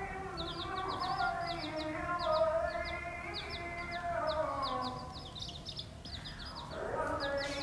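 Young chicks peeping in quick runs of short, high, falling notes, over background music.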